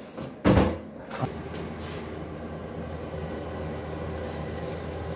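A single sharp knock about half a second in, then a steady low hum.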